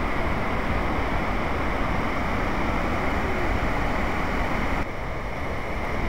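Steady rush of whitewater rapids and a small waterfall, an even noise with no pitch. It gets a little quieter about five seconds in.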